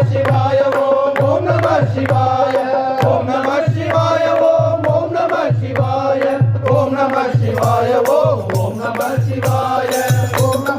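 Devotional chant-like singing with a held melody over a steady drum beat, about two beats a second.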